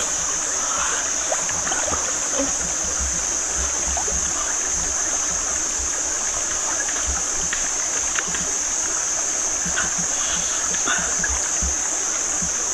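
Shallow rocky stream running steadily over stones, with a steady high hiss and a few faint clicks.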